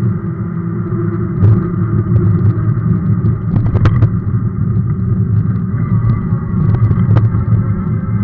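Steady low rumble of a Sondors electric fat bike rolling over broken, cracked asphalt, with sharp knocks as it jolts over cracks about a second and a half in, near four seconds, and past seven seconds.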